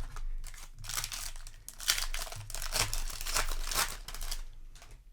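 Crinkling and rustling of a foil booster pack wrapper being handled, in irregular bursts over several seconds.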